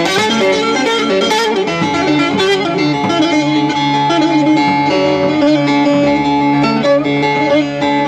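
Bağlama (Turkish long-necked saz) playing an instrumental melody of plucked notes over a steady low drone.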